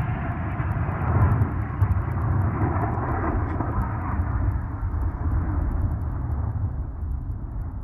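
Long rolling rumble of a cannon blast dying away, a low, rough roar that fades slowly and steadily.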